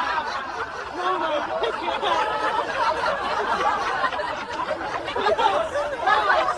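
People laughing and giggling without a break, a wavering run of chuckles and snickers.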